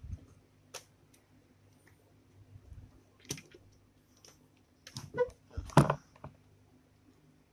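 Scattered clicks and knocks of hands handling plastic and metal parts, with a louder cluster of knocks and a short squeak about five to six seconds in, over a faint steady low hum.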